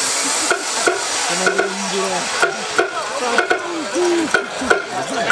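Loud dance-battle music over a PA with a quick, steady beat, heard through a heavy hiss, with voices from the crowd mixed in.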